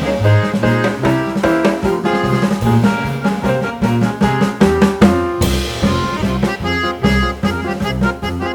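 Music with a steady drum-kit beat under held melodic notes.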